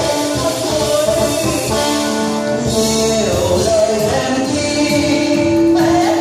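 Music playing for a stage show: a melody with long held notes over a steady beat.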